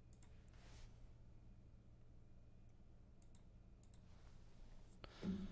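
Near silence with a few faint computer mouse clicks, and a sharper click about five seconds in.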